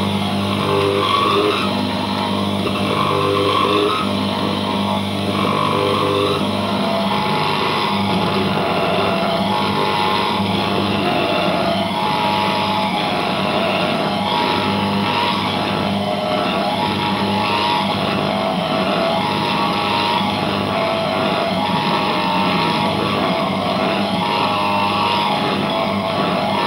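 Radio and TV sets giving out a steady droning buzz and hiss of reception interference, as the signal from transmitters swinging on a pendulum comes and goes.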